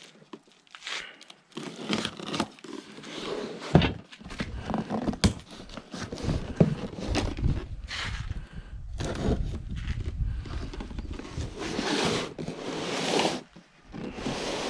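Cardboard shipping box being handled and opened: irregular scraping, tearing and crinkling of the packaging, with a sharp knock about four seconds in.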